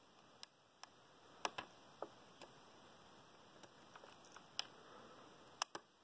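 Faint, irregular metallic clicks, about ten over six seconds, from a hook pick lifting the pins of a pin-tumbler lock cylinder held under tension by a tension wrench, as the pins are probed and set one by one.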